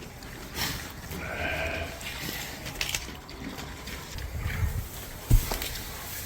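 A sheep bleating once, a single call of about a second, with a sharp thump about five seconds in.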